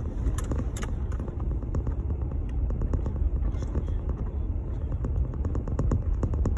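Jeep Gladiator running with a steady low rumble, with many faint quick ticks scattered over it.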